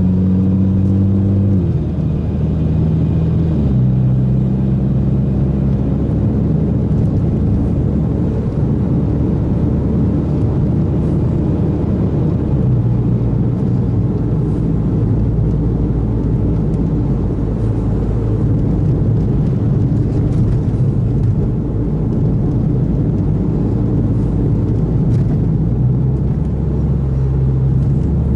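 Mitsubishi Lancer Evolution X MR's turbocharged 2.0-litre four-cylinder, fitted with an aftermarket exhaust and catted test pipe, running steadily under way, heard inside the cabin over road noise. The engine note steps to a new pitch a few times, about two and four seconds in and again around the middle.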